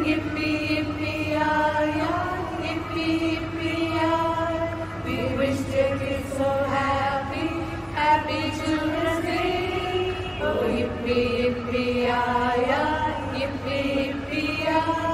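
A group of women singing a slow song together as a choir, holding long notes that glide from one to the next. A steady low hum runs underneath.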